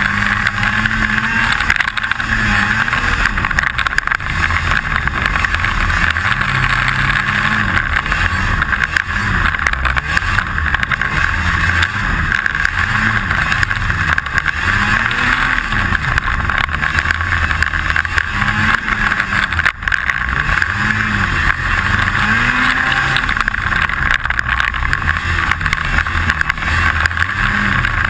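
Snowmobile engine running under load, its pitch repeatedly rising and falling as the throttle is worked, with a steady rattle of unknown cause over it.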